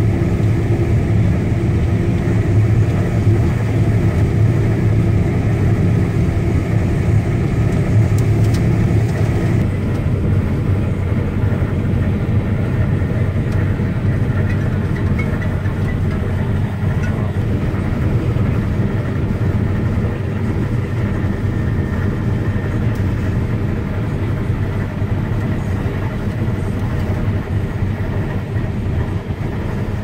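Claas Lexion 770 combine harvester running at work, heard from inside the cab: a loud, steady drone of engine and machinery whose tones shift about ten seconds in.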